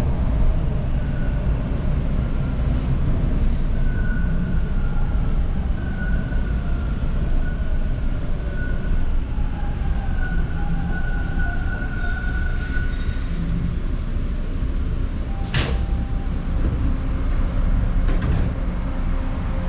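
Subway train running into a station: a steady low rumble with a faint whine that fades out about two-thirds of the way through, then a sharp clunk and, a couple of seconds later, another.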